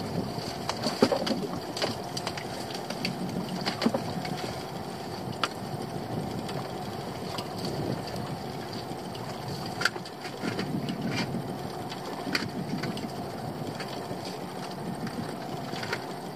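A small fishing boat's engine running steadily at idle, with a handful of short knocks and clicks as a lobster pot is handled at the gunwale.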